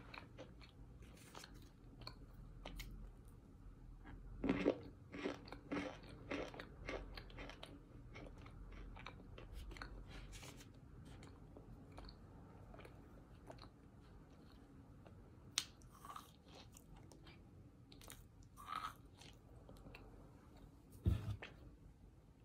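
Close-up crunching and chewing of compressed cornstarch chunks: a run of crisp bites and crunches around four to seven seconds in, then sparser, quieter chewing, with a sharper knock near the end.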